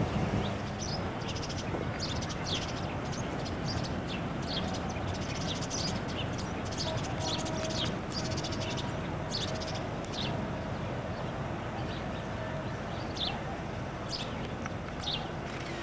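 Small birds chirping: many short, high chirps scattered throughout, over a steady low background noise.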